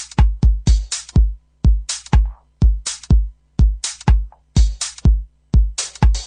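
Electronic dance music from a DJ mix: a sparse drum-machine beat of deep kick drums and sharp, bright percussion hits.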